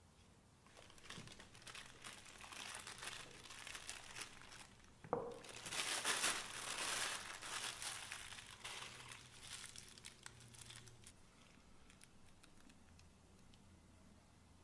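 Plastic piping bag crinkling and rustling in gloved hands as it is filled with cookie dough, loudest through the middle, with one sharp click about five seconds in.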